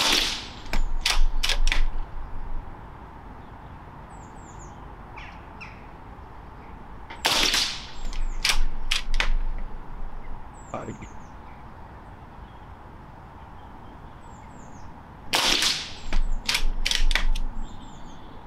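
Remington Vought PCP air rifle fired three times, roughly seven to eight seconds apart. Each shot is a sharp pop followed by a few short clacks as the chunky bolt is worked to cock the rifle for the next pellet.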